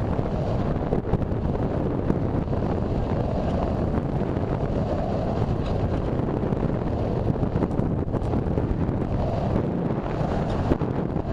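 Steady rush of wind over the microphone of a camera riding on a gliding RC sailplane, with no motor heard.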